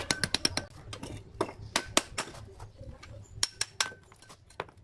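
Steel bricklaying trowel tapping red clay bricks down into wet mortar: irregular clusters of sharp clinks, a few of them ringing briefly.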